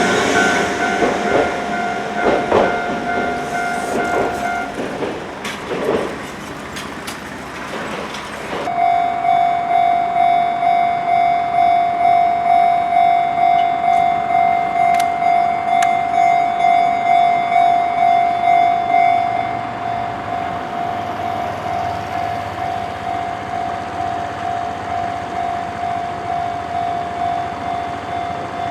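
Japanese level-crossing warning bell ringing as a tram crosses; the bell stops and the tram's wheels clatter past with clicks and knocks. Then another crossing's electronic warning bell starts ringing steadily, a single clear tone at about two strokes a second, somewhat quieter in the second half.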